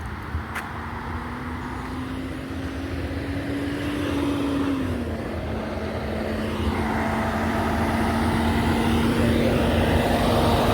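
Road traffic with a heavy truck's engine drawing closer: a steady engine hum that rises slightly in pitch, then drops about five seconds in, while the whole sound grows louder. In the second half, tyre and road noise from a passing vehicle swells and fades.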